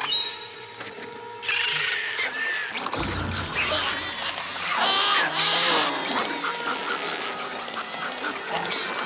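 A swarm of compsognathus, the small film dinosaurs, chirping and chittering as they attack, many short high calls overlapping one another from about a second and a half in.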